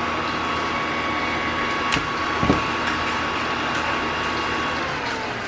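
A small inverter welding machine's cooling fan running with a steady whir and hum. Near the end its pitch starts to fall as it winds down. A sharp click about two seconds in, and a short knock just after.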